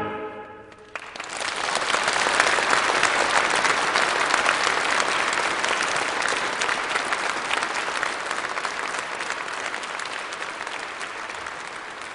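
The last choir chord dies away, and from about a second in an audience applauds, the clapping slowly fading.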